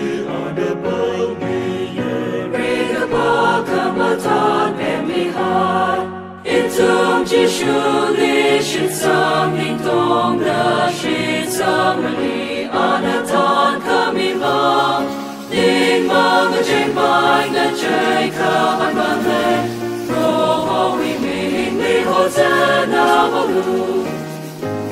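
Choir singing in sustained phrases, with brief breaks between phrases about six and fifteen seconds in.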